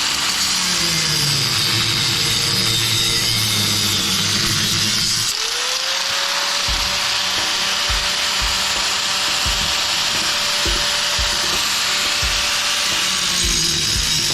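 Electric power tool running continuously as it cuts into a small PTAC fan motor's hard potting compound. Its note shifts with the load and spins back up about five seconds in.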